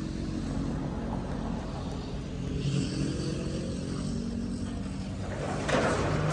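Heavy diesel engine of earthmoving equipment running steadily. A rushing hiss rises over it about a second before the end.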